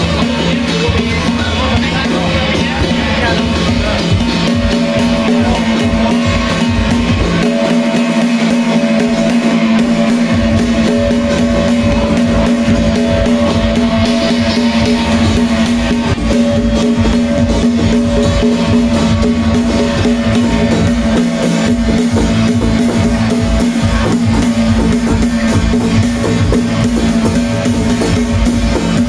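Loud music with a drum kit and a steady beat.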